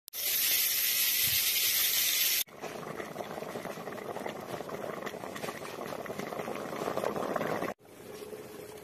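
Pork curry cooking in a pot. First comes a loud steady hiss, then, after a sudden cut about two and a half seconds in, dense bubbling and popping. Near the end it cuts again to a quieter pot of leafy greens boiling in water.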